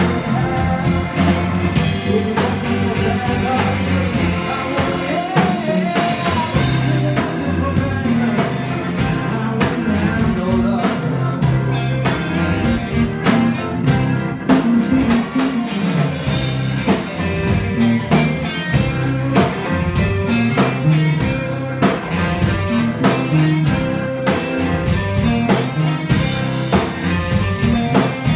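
Live blues band playing with no vocals: electric guitar, saxophone, electric bass, keyboard and drum kit, the drums keeping a steady beat that turns sharper and more pronounced about eight seconds in.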